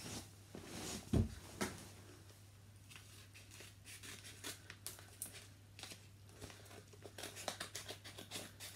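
Scissors snipping open a paper envelope in a run of short cuts, with paper crackling as it is handled. A dull thump about a second in as someone sits down on a bed.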